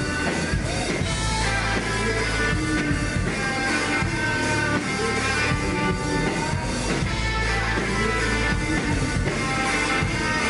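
Live rock band playing an instrumental passage, electric guitar prominent over bass.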